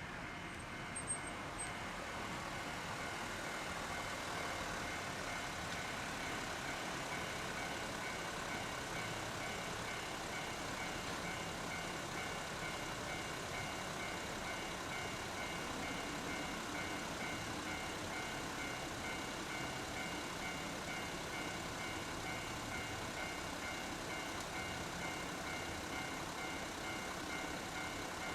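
Railway level-crossing warning alarm ringing steadily, a repeated ringing tone sounding over a faint low rumble.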